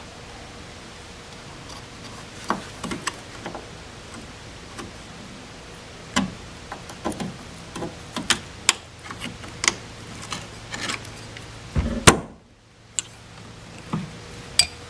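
Scattered small metal clicks and scrapes as a screwdriver pries at the retaining clip on the end fitting of a trunk-lid gas strut, with one sharper click late on.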